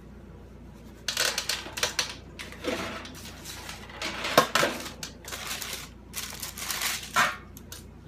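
Baking paper crinkling and rustling in irregular bursts as a hot, softened lump of HDPE grocery-bag plastic is peeled out of it and handled with gloved hands, with one sharper clack about four and a half seconds in.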